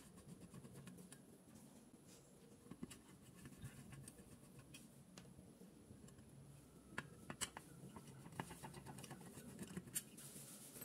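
Faint scraping and a few small sharp metallic clicks from a screwdriver working at the terminal screws of an electric iron's blown thermal fuse as it is removed from the soleplate.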